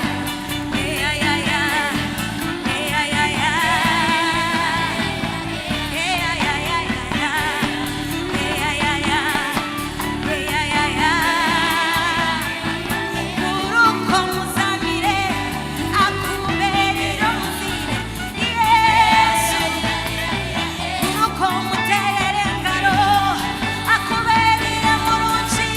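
A band playing a Christian worship song, with singers holding wavering sung notes over steady instrumental backing.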